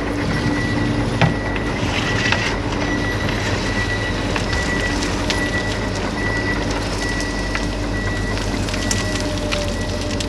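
A small electric motor running steadily with a low hum and a thin high whine, with a few light clicks.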